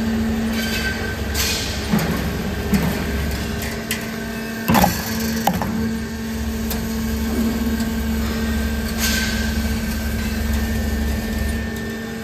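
Roll forming machine running: a steady motor hum with a constant whine as a metal strip feeds through the roller stands, broken by a few sharp metallic knocks.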